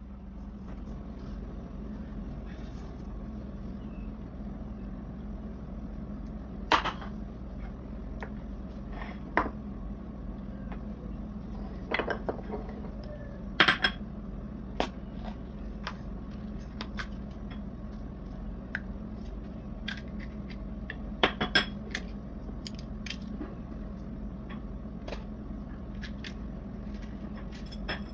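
Kitchen dishes and utensils clinking and knocking now and then, with a few sharper clacks, over a steady low hum.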